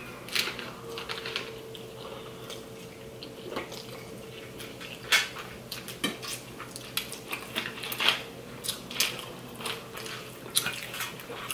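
Forks clinking and scraping on plates, with wet chewing, slurping and mouth smacks of people eating pasta and salad: irregular short clicks over a faint steady hum.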